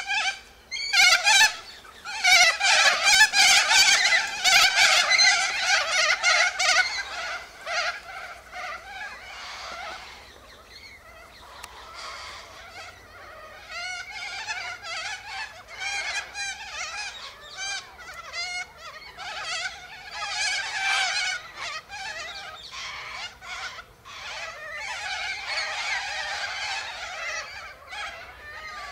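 A flock of white cockatoos screeching in many overlapping calls, loudest for the first several seconds and then carrying on in a thinner, ragged chorus.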